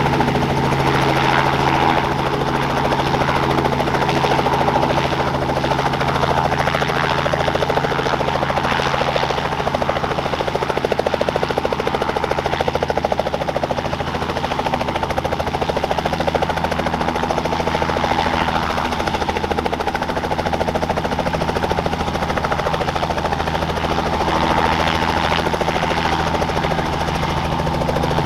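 Robinson R44 Clipper II helicopter running steadily as it lifts off and climbs away, its Lycoming IO-540 six-cylinder fuel-injected piston engine and main rotor at take-off power.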